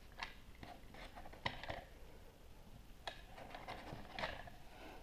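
Light clicks and scrapes of a plastic Play-Doh Diggin' Rigs cutter toy being handled and pressed over a sheet of play dough, a few short ones scattered through.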